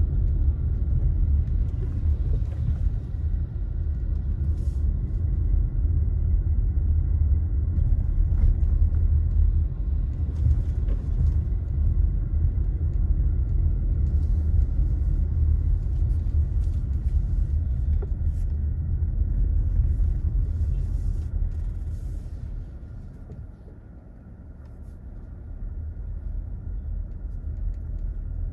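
Steady low road and engine rumble of a vehicle driving along city streets. Near the end it eases off for a couple of seconds, then builds again.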